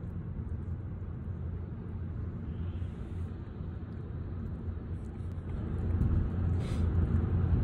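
Steady low road rumble of a moving car heard inside the cabin, growing louder from about five seconds in.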